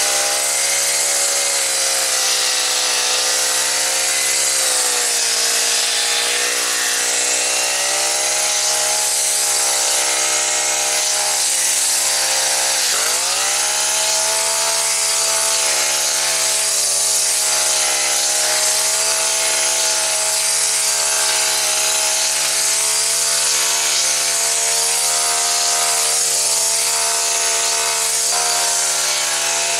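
Four-stroke GX50-clone engine on a multi-tool running near full throttle, driving a pole hedge trimmer head that chatters as it cuts through brambles. About 13 seconds in, the engine speed drops sharply and then climbs back to a steady run.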